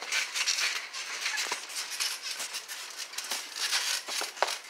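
Trampoline springs and mat rattling and clicking irregularly as two boxers bounce and shuffle while sparring, with a few short squeaks.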